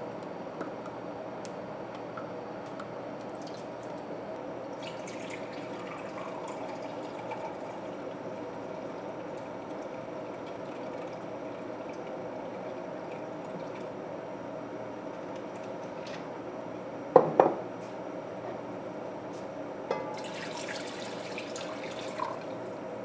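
Apple cider vinegar poured from a glass measuring cup into pepper puree in an enameled cast-iron pot, a soft splashing hiss near the end. A few seconds before comes a sharp double knock, over a steady low hum.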